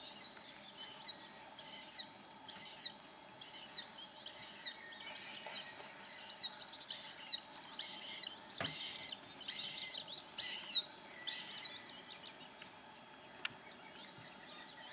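Marsh harrier calling: a high, arched call repeated about once a second, growing louder and stopping about eleven seconds in. The calls are thought to come from the perched female.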